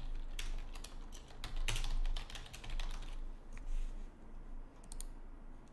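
Typing on a computer keyboard: a quick, irregular run of keystrokes that thins out after about three seconds.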